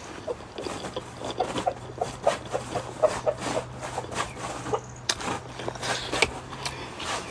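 Close-up eating sounds, many short wet chewing clicks and smacks, with hens clucking in the background.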